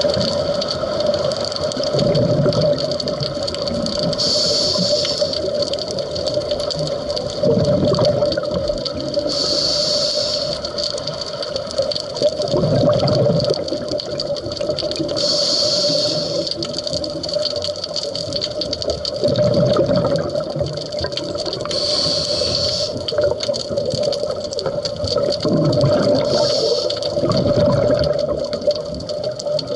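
Scuba diver breathing through a regulator underwater: a high hiss on each inhale, then a low rush of exhaled bubbles, repeating about every five to six seconds, five breaths in all. A steady hum runs underneath.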